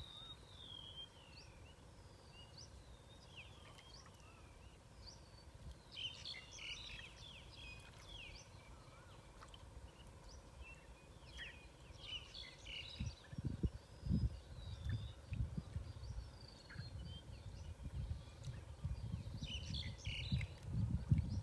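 Birds chirping, short chirps and sliding calls with a few busier flurries, over a faint steady outdoor background. From about halfway, low rumbling thuds come and go and are the loudest sound.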